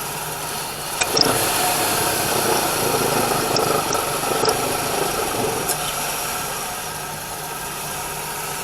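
2000 Chevrolet Cavalier's 2.2-litre engine idling with the air conditioning on, its accessory belt and tensioner pulley running. A click about a second in, then a louder stretch of several seconds that settles back down. The owner takes the noise for the belt tensioner on its way out, its pulley sounding like a bad bearing and letting the belt go slack when the AC compressor engages.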